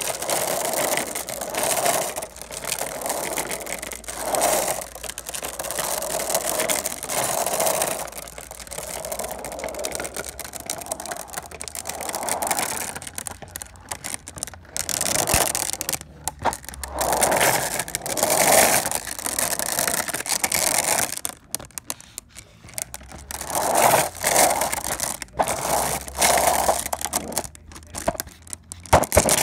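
Harsh scraping, crackling noise that swells and fades every second or two, over a steady low hum.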